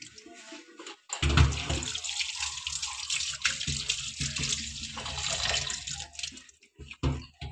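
Kitchen tap water running into a plastic bowl of sliced potatoes in a steel sink as they are rinsed. It starts about a second in after a faint trickle, runs steadily, and stops near the end.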